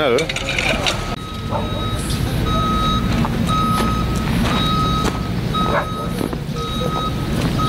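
A vehicle's reversing alarm beeping, a single high tone repeated about once a second, over a steady low engine rumble.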